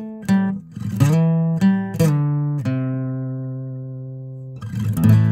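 Background music: a guitar plucking single notes that ring and fade, with one long note dying away through the middle.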